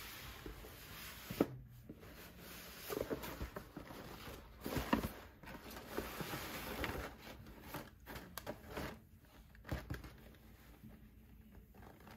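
Paper shopping bag and tissue paper rustling and crinkling as a garment is unwrapped by hand: soft, irregular rustles with a few sharper crinkles, dying down near the end.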